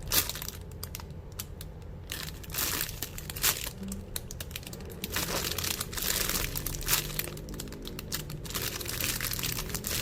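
Plastic packaging crinkling and rustling on and off as a squishy toy in its bag is handled.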